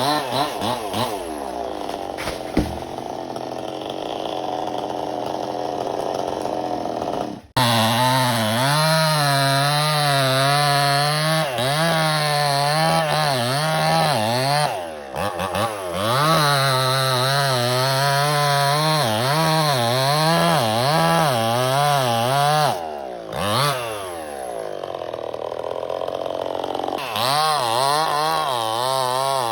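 Chainsaw running and cutting through a coconut palm trunk, its engine pitch rising and falling over and over as the chain bites. It drops away briefly about seven seconds in and again around fifteen and twenty-three seconds before picking back up.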